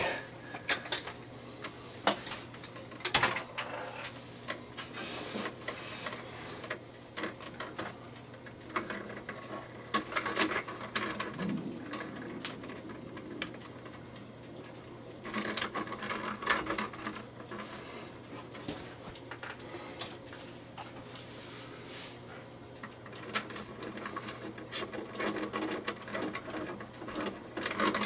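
Electrical wires being handled and twisted together with lineman's pliers and capped with wire nuts: irregular small clicks, scrapes and rustles over a faint steady low hum.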